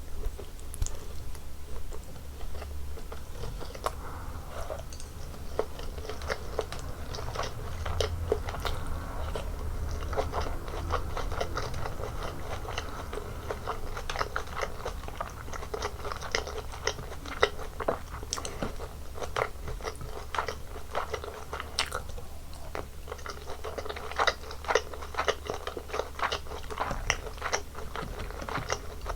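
Close-miked chewing and biting of a Korean home meal of bulgogi, kimchi, laver and rice: wet mouth sounds with many crisp crunches and crackles, over a steady low hum.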